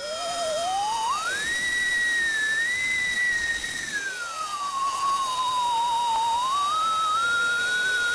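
CNC machine's stepper motors whining: one whistling, theremin-like tone that slides slowly up and down in pitch as the axes change speed. It climbs over the first second and a half, holds high, falls through the middle and climbs again near the end, over a fainter steady high whine.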